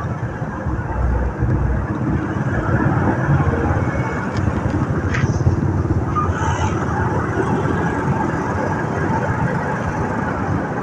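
Continuous riding noise from a motorcycle moving through traffic: its own engine and the wind, mixed with the engines of the surrounding motorcycles and cars.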